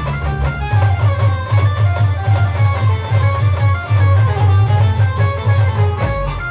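Instrumental music from an Indian band: a melody line over a heavy, steady low beat.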